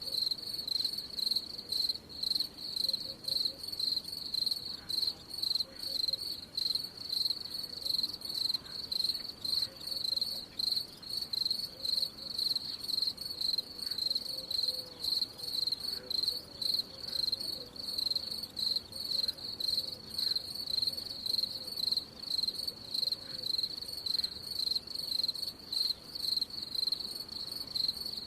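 A cricket chirping steadily in a high, even trill, pulsing in a regular rhythm of about two chirps a second.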